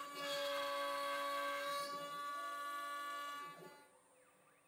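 CNC router spindle running with a steady high whine as its straight bit cuts a mortise into a clamped wood workpiece. The sound drops away sharply about three and a half seconds in.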